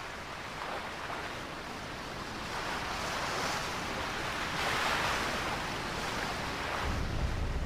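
Ocean waves breaking and washing in: a steady rush of surf that swells twice, about three and five seconds in.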